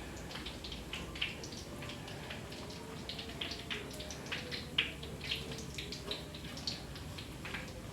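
Food frying in hot oil: a steady sizzle with many irregular sharp pops and crackles.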